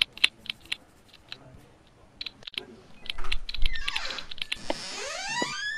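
Computer keyboard being typed on, quick irregular key clicks. From about three seconds in, a louder rising whoosh with an upward-gliding tone.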